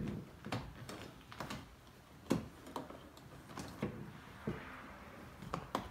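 A series of irregular sharp plastic clicks and taps as a plastic trim pry tool works at the clips of a Dodge Charger's dash speaker grille.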